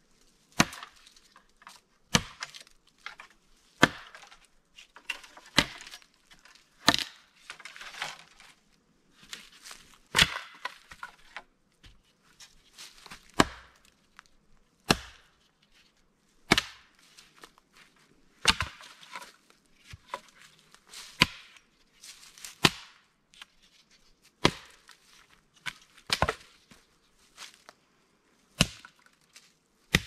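A 12-inch Tramontina machete chopping into a thick stick of firewood held upright: a steady series of sharp woody chops, roughly one every second and a half.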